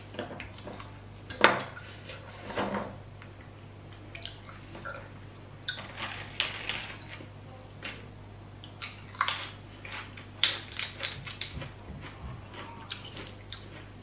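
Eating sounds at a table: scattered clicks and light clinks from hands and cutlery on a plate, with brief crunchy bursts of chewing and tearing raw cabbage leaves, over a low steady hum.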